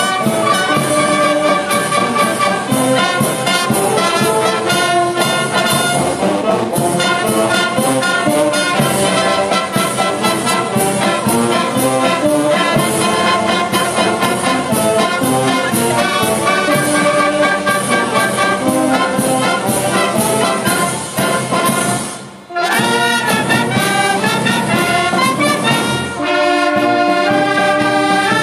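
Band playing brass music with a steady beat. The music breaks off briefly about three-quarters of the way through, then starts again.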